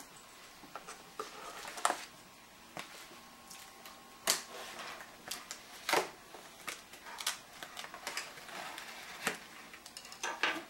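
A knife slitting the packing tape along a cardboard box's seam, with irregular sharp scrapes and taps, then the cardboard flaps pulled open near the end.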